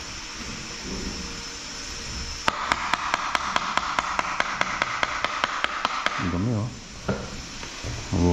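A quick, even run of sharp taps, about six a second for some three and a half seconds, as a red-handled tool knocks against the motor housing of a Hilti TE 7C rotary hammer being taken apart.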